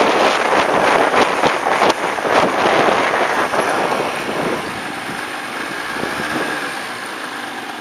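Wind buffeting the microphone of a moving motorcycle, easing off as the bike slows. From about halfway through, the hum of small engines with wavering pitch comes through as the riders roll to a stop.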